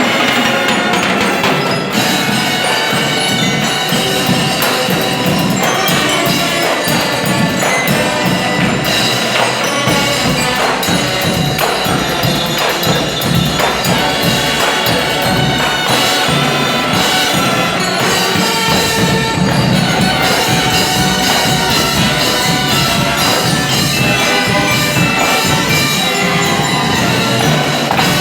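Loud music with rhythmic percussion: struck, knocking beats and ringing mallet-like tones, with no break.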